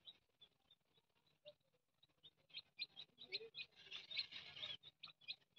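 Young chicks peeping faintly: many short, high cheeps, sparse at first and coming thicker from about two and a half seconds in.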